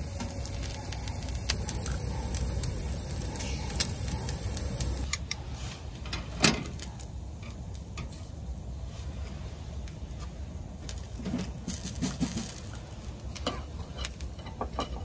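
Meat sizzling on a wire grill over the coals of a camp wood stove, with scattered small crackles and clicks and a sharp click about six and a half seconds in.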